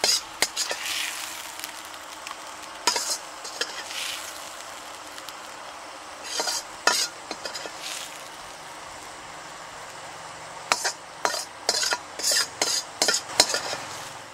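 A metal spoon scraping and scooping against a steel karahi while the fried goat brain in oil keeps up a steady sizzle. The scrapes come in short strokes, with a quick run of them near the end.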